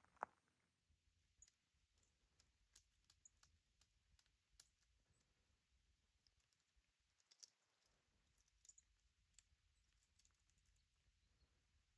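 Near silence, broken by faint, irregular little ticks scattered throughout.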